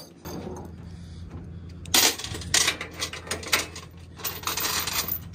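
Steel tie-down chains and load binders clinking and clanking against a trailer's steel chain rack, with a run of sharp metallic knocks in the second half.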